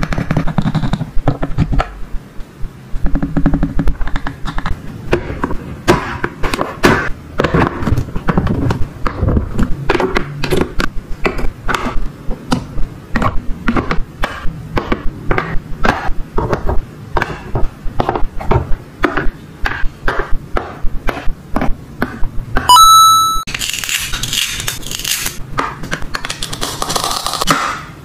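Small plastic toy-kitchen pieces handled and knocked together: a dense run of light taps and clicks. About 23 seconds in a toy gives a short electronic beep, followed by a few seconds of hiss.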